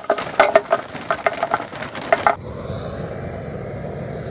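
Charcoal briquettes poured from a bag clattering into the metal firebox of a portable charcoal grill, a quick run of knocks. About two and a half seconds in, a butane torch starts with a steady hiss as it fires the briquettes to light them.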